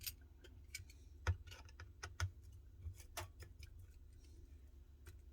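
Light, irregular metal clicks and taps from a precision screwdriver unscrewing tiny screws inside an iPhone 14 Pro, with two louder taps a little over a second in and just after two seconds.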